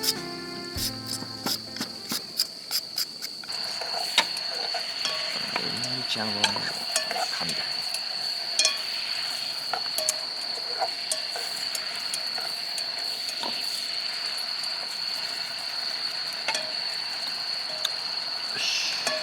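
Sizzling with scattered sharp clicks of utensils, over a steady high insect trill that sets in a few seconds in, typical of camp cooking on an evening campsite.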